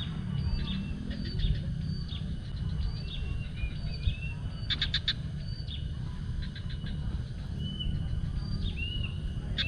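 Several wild birds calling: short high chirps and slurred whistled notes, with a quick rattling series about five seconds in. A steady low rumble runs underneath.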